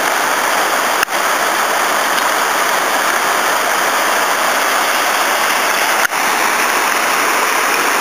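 The Bagnolo torrent's small cascades rushing and splashing down a rocky channel, a steady, loud rush of falling water. Two brief dropouts break it, about a second in and near six seconds.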